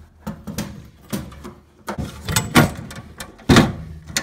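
Rubber hoses and plastic fittings being worked loose and pulled out of the casing of a stripped-down Viessmann Vitodens 100 combi boiler: a run of clunks, knocks and scrapes of plastic and metal. The loudest knocks come about two and a half and three and a half seconds in.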